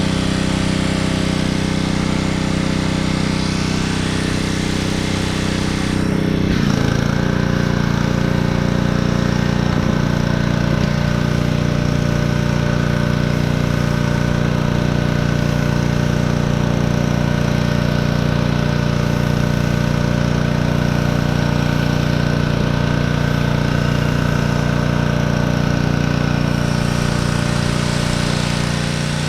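Small gas engine of a pressure washer running steadily; about six or seven seconds in its pitch drops and then holds.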